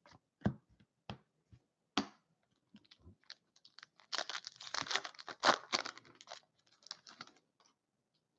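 Scattered sharp clicks of trading cards being handled, then, about four seconds in, a few seconds of crinkling and tearing as a foil trading-card pack is ripped open, tailing off into a few more clicks.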